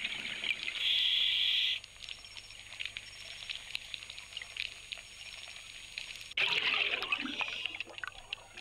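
Underwater water sound, a crackling, trickling haze with many small ticks. About six and a half seconds in, it gives way suddenly to a louder rush of bubbles.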